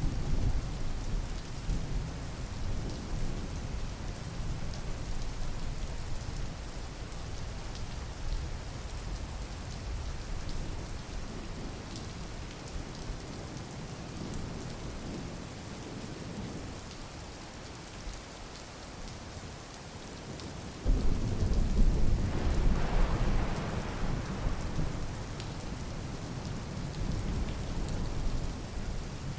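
Steady rain with low rumbling thunder. About two-thirds of the way through, a louder roll of thunder starts suddenly and rumbles for several seconds.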